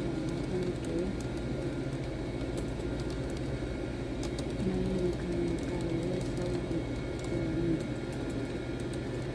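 Faint clicks of computer keyboard typing over a steady low hum, with soft low held tones that step up and down in pitch.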